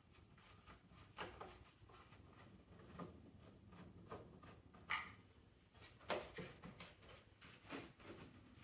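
A few faint, scattered clicks and knocks of plastic engine-bay parts being handled as the air filter housing is worked free, about six in all, the sharpest about five seconds in.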